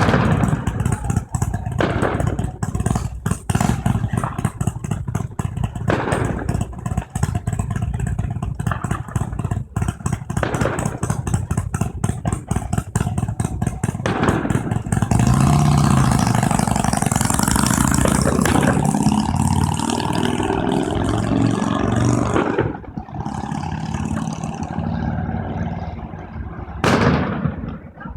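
Motorcycle engines running with a rapid, uneven pulsing clatter, then revving louder and steadier for several seconds about halfway through before dropping back. A single sharp, loud burst near the end.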